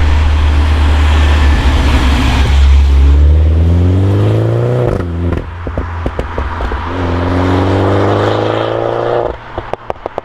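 MINI John Cooper Works F56 four-cylinder turbo engine through a Maxi-Tuner valve exhaust, pulling hard with its pitch rising. A sharp gear change about halfway through brings a burst of exhaust pops, then a second rising pull. Near the end comes a run of crackles and bangs on lift-off, the overrun backfire this exhaust is known for.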